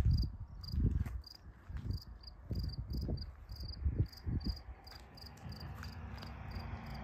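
A cricket chirping steadily, about three short chirps a second, with irregular low thumps in the first half.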